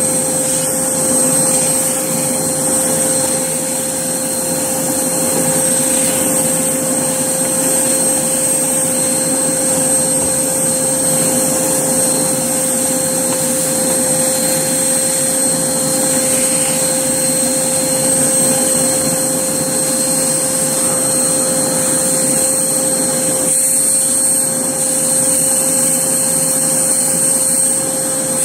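Hoover Blaze vacuum cleaner running steadily at full speed with a high-pitched motor whine, doing a last clean-up of the cereal mess.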